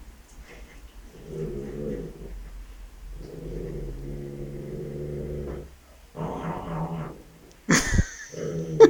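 Shih Tzu dog growling in long, low rumbles during play, then a sharp yap near the end.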